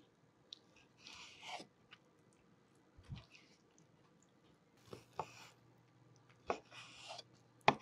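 A kitchen knife slicing raw chicken breast into strips on a wooden cutting board: soft, wet cutting and handling sounds, with several sharp knocks of the blade against the board, the loudest near the end.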